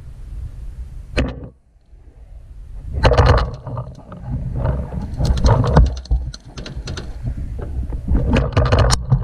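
Paintball markers firing in quick bursts of sharp pops, over a loud low rumbling on the camera's microphone.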